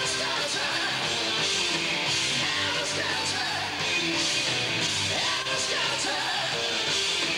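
Live hard rock band playing: distorted electric guitar, bass guitar and drums, with cymbals splashing about twice a second and a singer yelling over them. Recorded from among the audience.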